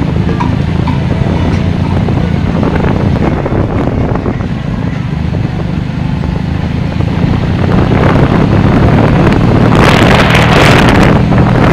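Wind buffeting the microphone of a camera moving along a street, over a steady low hum and rumble. A louder rush of wind hiss comes in about ten seconds in.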